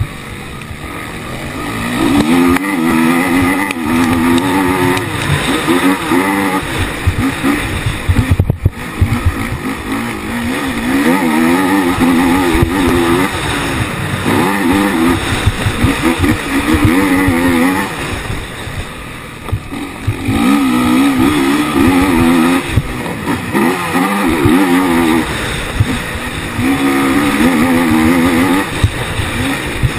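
Onboard sound of a Honda racing quad's engine at race pace, revving hard, its pitch rising and falling over and over as it accelerates and backs off for the track. There is a brief sharp cut about a third of the way in and a quieter lull about two-thirds in.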